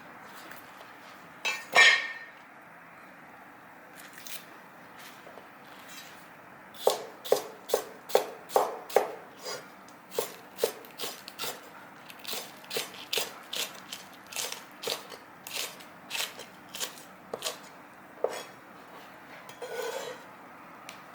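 Knife chopping vegetables on a cutting board: a loud knock or two about two seconds in, then a long run of steady chopping strokes, about two to three a second.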